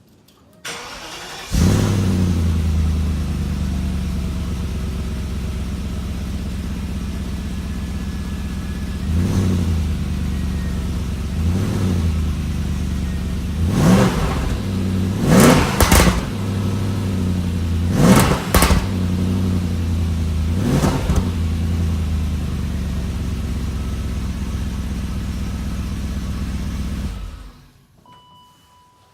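Stock 1998 BMW 540i E39's 4.4-litre V8 starting after a brief crank and settling into an idle. It then takes a series of quick revs, about eight sharp blips, before being switched off near the end.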